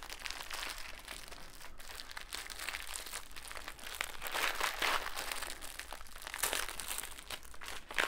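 Clear plastic overwrap on a bag of microwave popcorn being crinkled and pulled off by hand: irregular crackling, louder about halfway through and again near the end.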